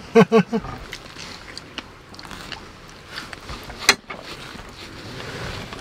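Quiet table sounds of people eating strawberries: faint chewing and small clicks, with one sharp click near four seconds in as a wooden pick works at the strawberries on a wooden plate.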